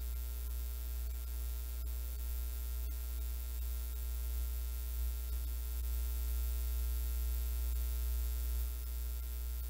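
Steady low electrical hum with a faint hiss, the background noise of the recording, with a couple of faint ticks about two and three seconds in.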